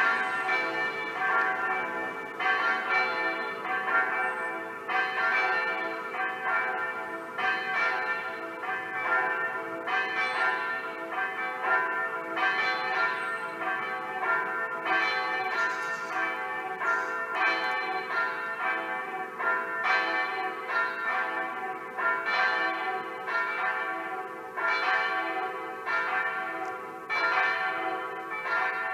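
Electronic (simulated) church bells ringing a peal from the tower: many bell strokes overlapping in a continuous, uneven rhythm, each ringing on as the next sounds.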